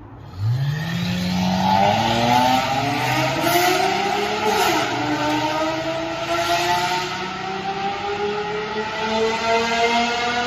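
Toyota Century's V12 engine, through a loud aftermarket exhaust, accelerating hard. The pitch rises steeply, then keeps climbing, with a brief drop at a gear change about four and a half seconds in.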